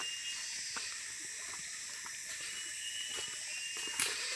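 Steady, high-pitched insect chorus of a tropical forest, hissing and buzzing, with a few faint rustles and a sharper click near the end.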